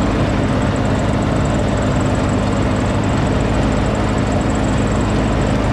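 John Deere riding lawn tractor's engine running at a steady, constant speed while mowing, with the mower deck under it.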